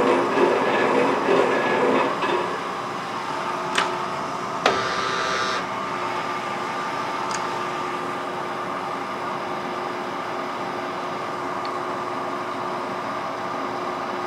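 Metal shaper running: about two seconds of rhythmic clatter as the ram strokes the cutting tool across the steel, then a steadier, quieter machine hum with a sharp metallic click a little under five seconds in while the tool head is reset for the next pass.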